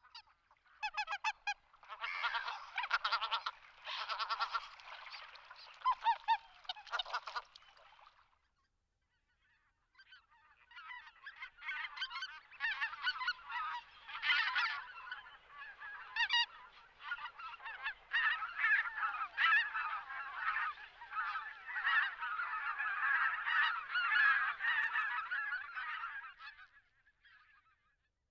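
A flock of wild geese calling, many honks overlapping in a dense chatter. The calling breaks off for about two seconds after some eight seconds, then starts again and dies away near the end.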